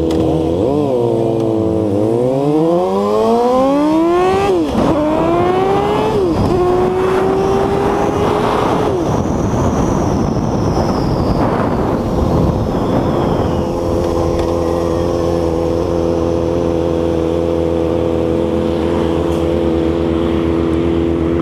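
2006 Honda CBR600RR's inline-four engine accelerating from a stop, its pitch climbing and dropping twice as it shifts up, then holding at cruise with wind rushing over the microphone. It slows about nine seconds in and idles steadily from about twelve seconds on.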